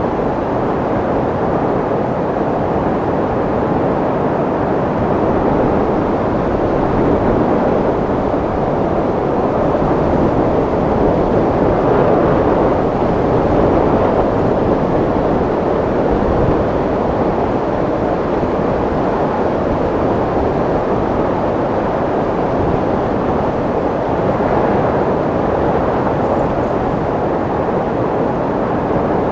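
Wind blowing as a steady, dense rushing noise, swelling a little in strength about seven seconds in and again between about twelve and fourteen seconds.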